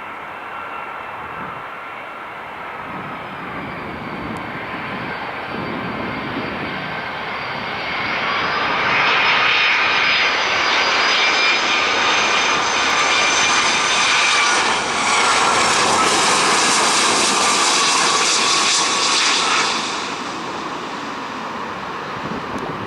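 Jet engines of a Boeing 757-200 airliner passing close by, with a dense rush and several high whining tones. The sound builds over several seconds, stays loud for about twelve seconds with its whine sliding slightly lower, then falls away abruptly near the end.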